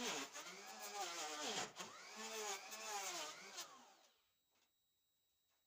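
Bosch POF 1200 AE hand router running while it is slid along its guide rail, surfacing a wooden panel, its motor pitch rising and falling in long swells. About four seconds in it is switched off and winds down.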